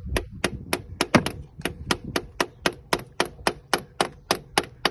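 Rapid light hammer taps on metal, about four or five strikes a second, slowing slightly near the end: tapping home the oil-channel plug beside the oil sensor of a Daewoo Lanos engine. The plug most likely sits loose and lets oil escape, the suspected cause of the hydraulic lifters knocking.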